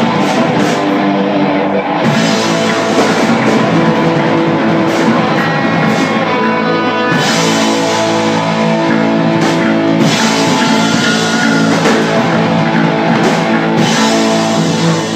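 Live rock band playing a song at full volume, with electric guitar and a drum kit.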